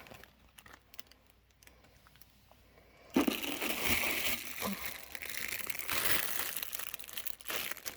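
Packaging being crinkled and rustled while items are pulled out of the kit box, starting suddenly about three seconds in after a few faint handling clicks.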